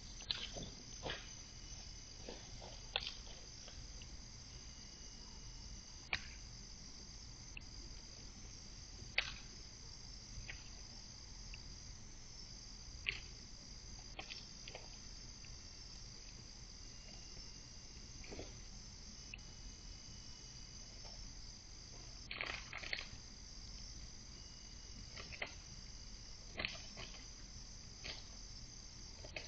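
A night insect chorus makes a steady high trill, broken by scattered sharp, short crackles and clicks.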